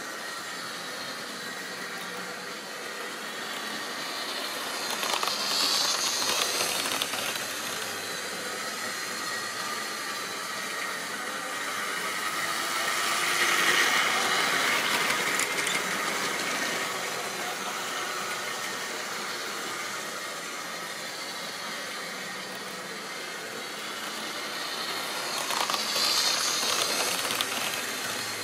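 Model railway trains running on the track: a steady hum of small electric motors and wheels rolling on the rails. It swells three times as trains pass close, loudest midway through, when a long rake of goods wagons goes by.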